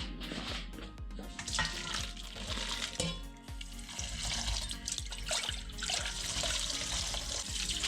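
Water running from a kitchen tap into a sink, starting a second or two in and running steadily, over background music.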